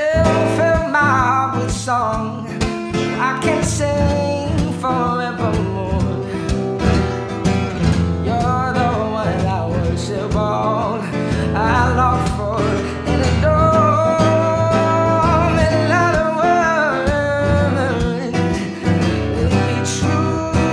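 Music: a man singing in long, gliding notes over acoustic guitar accompaniment.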